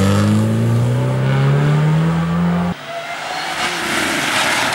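Rally car engine under hard acceleration, its pitch rising steadily, then cut off abruptly about two and a half seconds in. A steady rushing noise without a clear engine pitch follows and grows louder toward the end.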